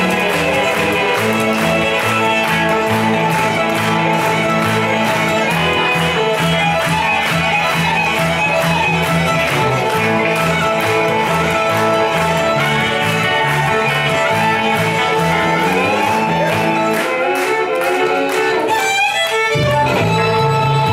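Live string band playing a fast bluegrass-style tune with a steady beat: two fiddles over upright bass and electric guitar. Near the end the bass notes stop for a few seconds while sliding notes come in, and then the full band picks up again.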